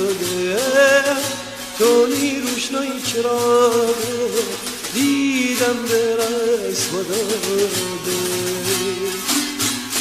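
Background music: a wavering, ornamented melody over a steady beat.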